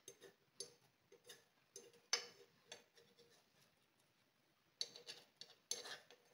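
Fork tapping and scraping against a non-stick frying pan as an omelette is worked: faint, irregular light clicks, the sharpest a little over two seconds in and a quick run of them near the end.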